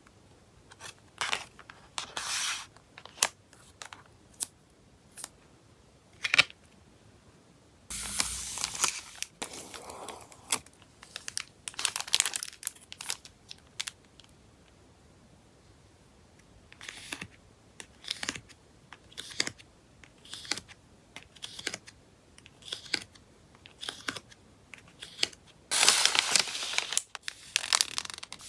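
Hands packing photocards: plastic sleeves and wrapping crinkling and rustling between scattered small taps and clicks, with longer bouts of crinkling or tearing about eight seconds in and again near the end.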